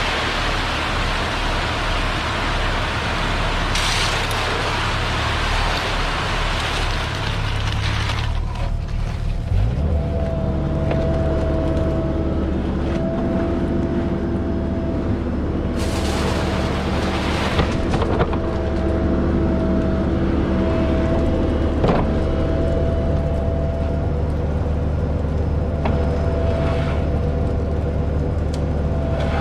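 Concrete mixer truck's diesel engine running with the drum spinning: a noisy rushing at first, then the engine picks up speed about ten seconds in and holds a steady, even run with a steady whine above it.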